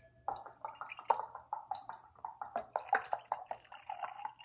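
Beer glugging out of an opened tall can into a glass: a quick run of irregular gurgles, the pitch climbing a little about three seconds in as the glass fills.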